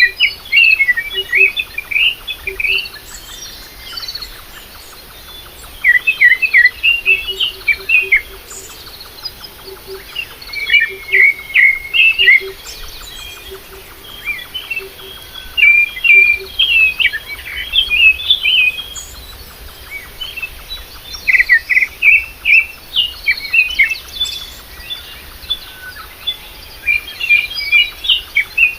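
Birds chirping in quick flurries of short, high chirps that come every few seconds with brief pauses between.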